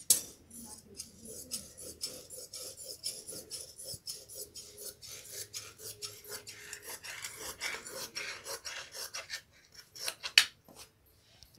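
Scissors cutting through cloth along a curved line: a quick run of crisp snips and the rasp of the blades through fabric, stopping about ten seconds in with one sharp click.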